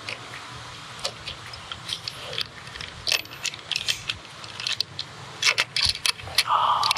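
Small irregular clicks and rattles as a star knob is threaded onto a bolt by hand, fastening a kayak cradle's mounting plate to a roof-rack bar. The clicks come more often in the last couple of seconds.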